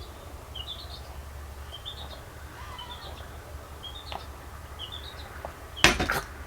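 A small bird chirping over and over, short quick rising chirps about once a second, over a low steady hum. Near the end comes a brief loud clatter.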